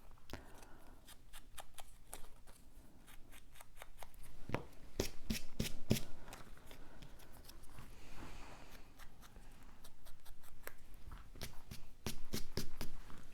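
Die-cut cardstock pieces being handled on a work surface: light paper rustling with scattered clicks and taps, busiest about five seconds in and again near the end.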